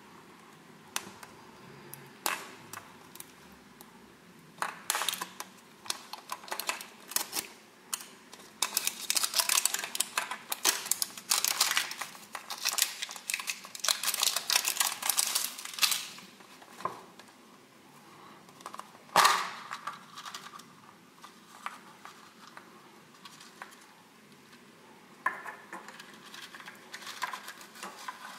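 Clear plastic shrink-wrap crinkling and crackling as it is peeled off a plastic surprise egg, with dense crackling for several seconds in the middle. A single sharp click comes a little after the middle, and light rustling of paper and plastic as a sticker sheet is pulled out near the end.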